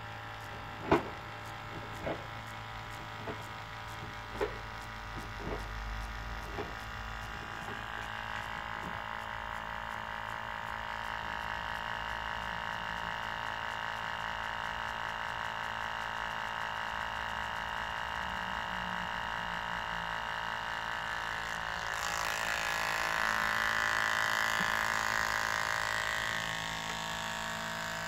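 Small electric transfer pump running with a steady hum as it draws engine oil out through the dipstick tube, with a few clicks about a second apart in the first seconds. About two-thirds of the way through, a louder hissing, splashing noise joins in as the liquid pours out of the outlet tube into a plastic bottle.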